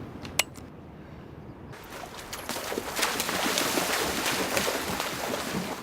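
Rushing wind-and-sea noise on a film soundtrack, with one sharp click near the start; the rushing swells louder from about two seconds in and cuts off abruptly at the end.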